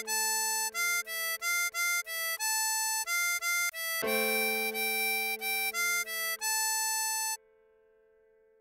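Diatonic harmonica playing a slow melody of short, separate notes on holes 5 and 6 (E, F, G and A), over a sustained backing chord that is struck again about four seconds in. The playing stops about a second before the end.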